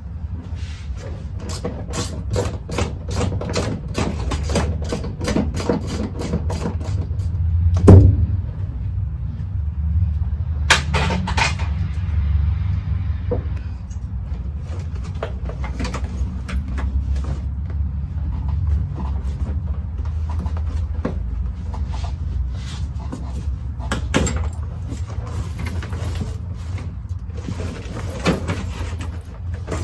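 Clicks and knocks of parts being handled and pulled while stripping a car's interior, with a loud knock about eight seconds in, over a steady low rumble.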